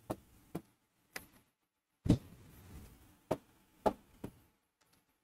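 A marker tip tapping against a writing board as figures are written: about seven short, sharp taps at uneven intervals, the loudest a little after two seconds in.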